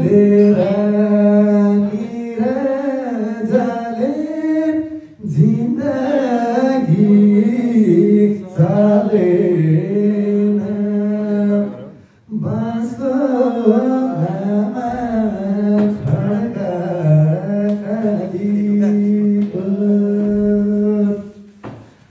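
A man singing a song into a handheld microphone, in long phrases with short breaks about 5 and 12 seconds in.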